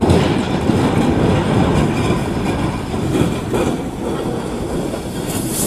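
Diesel freight locomotive running through a level crossing and ploughing into a truck's trailer: a continuous mix of train rumble and grinding, scraping metal, with no single sharp bang.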